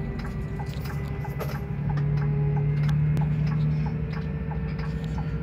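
Scania coach engine and road noise heard inside the driver's cab: a steady low drone that swells about two seconds in and eases again near the end, with a faint whine above it and a light regular ticking about twice a second.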